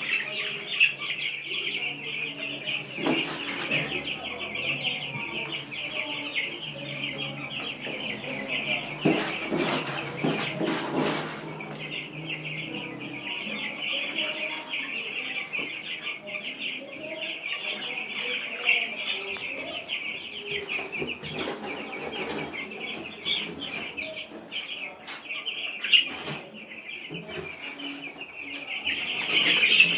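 A flock of week-old broiler chicks peeping constantly and densely. Around ten seconds in there is a brief stretch of rustling noise.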